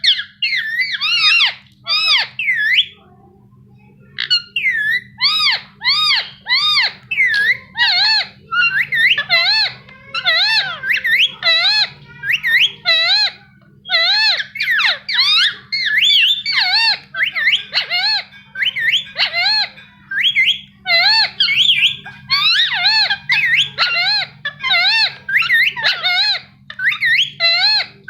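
Indian ringneck parakeet chirping: a fast run of short, warbling whistled notes, several a second, with one brief pause a few seconds in.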